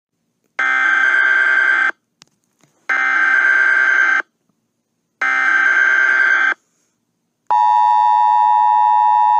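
Emergency Alert System tones: three screeching bursts of SAME header data, each a little over a second long with short gaps between them, then about 7.5 seconds in the steady two-tone EAS attention signal begins.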